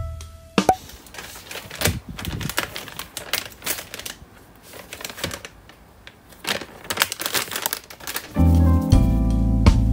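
A plastic snack pouch crinkles, with light taps, as it is handled and set down on a desk. The sounds come in irregular bursts with a lull midway. Background music stops at the start and comes back in near the end.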